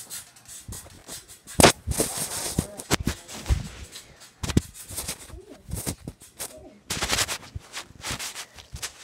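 Handling noise of a phone held with its microphone covered: irregular rubbing and scraping with sharp bumps, the loudest a knock about a second and a half in.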